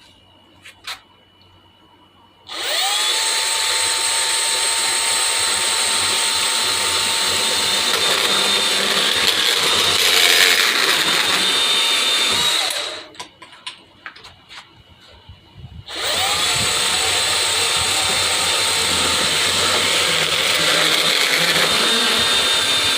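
Hercules 20V brushless cordless deep cut band saw, on speed setting 4, cutting PVC. It spins up to a steady whine about two seconds in, runs for about ten seconds and stops, then starts again and runs until near the end. There are a few clicks before and between the runs.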